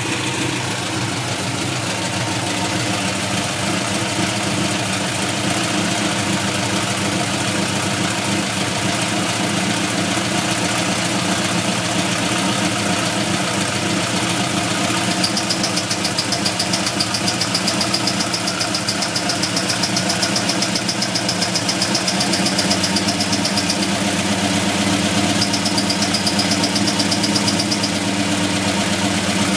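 Engine idling steadily, with a rapid, evenly repeating high-pitched ticking that comes in about halfway and drops out twice for a moment: the strange noise that the owner wants diagnosed.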